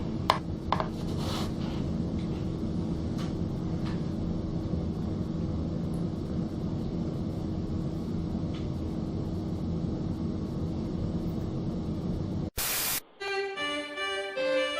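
Steady background noise with a faint low hum and a few sharp clicks in the first second and a half. Near the end it cuts off abruptly, a short burst of noise follows, and then instrumental music starts, a melody of separate held notes.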